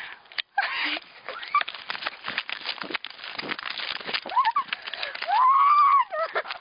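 Camera mic rubbing and knocking as it is carried on the move, with a girl's short high-pitched squeal near the end, the loudest sound here, and a brief rising squeak just before it.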